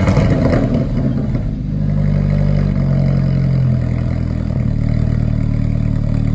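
Alfa Romeo 4C Spider's turbocharged 1.75-litre four-cylinder through a racing exhaust: a short rev peaks and drops away in the first second, then the engine idles steadily.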